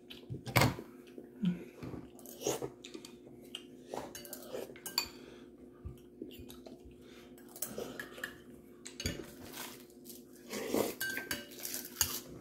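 A metal spoon clinking and scraping against a ceramic bowl while scooping soup, in scattered light clinks every second or two.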